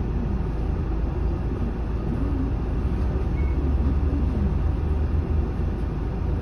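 Diesel engine of a 2007 Isuzu Erga city bus idling at a stop, heard from inside the cabin as a steady low hum. A short high beep sounds about three and a half seconds in.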